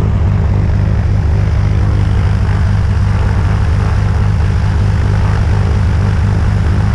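Single-engine propeller plane's engine idling on the ground, a loud steady drone with a deep hum and a rushing wash of propeller air.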